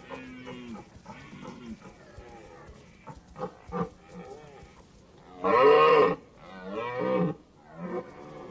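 Red deer stag roaring in the rut, in several calls. The loudest roar comes about five and a half seconds in and lasts about half a second, with another close after it.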